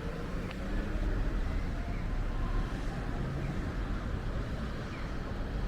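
Steady low rumble of city traffic with wind on the microphone. A faint siren climbs in pitch during the first second or so.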